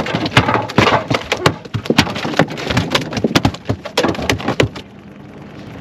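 A large, freshly landed halibut flopping and slapping against the boat, a quick irregular run of knocks and slaps that stops about three-quarters of the way through.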